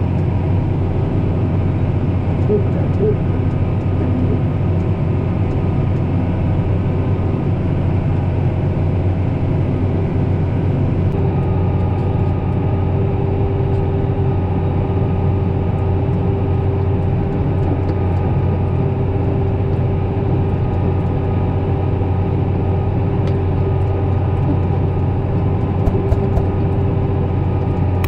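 Tractor engine running steadily under load while pulling a cultivator, heard from inside the cab: a constant low drone with a steady higher whine that grows stronger about eleven seconds in.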